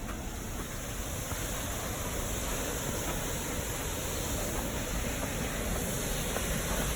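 Steady rushing roar of a river waterfall, slowly growing louder.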